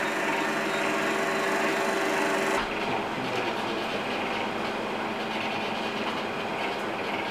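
Commercial espresso machine at work behind a bar counter: a steady mechanical hum for the first two and a half seconds, then a rough, even hiss.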